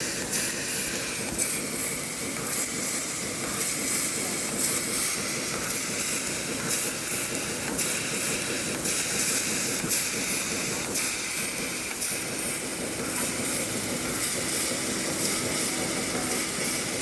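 Laser cutting machine running: a steady hiss with irregular short surges of sharper, higher hiss and faint clicks.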